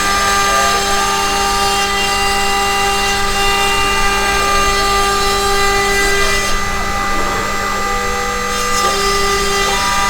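DIY CNC router's spindle running with a steady whine as a single-flute end mill cuts plywood, with fainter tones from the axis motors rising and falling as the machine moves.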